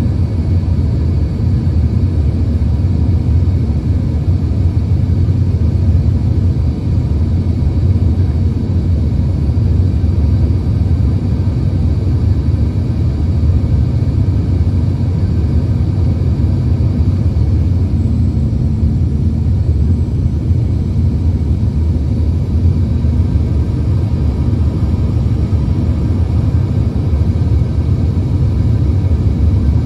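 Cabin noise of an Embraer ERJ-135 regional jet descending on approach with flaps down: a steady low rumble of airflow and engines, with a faint steady high whine from the rear-mounted turbofans over it.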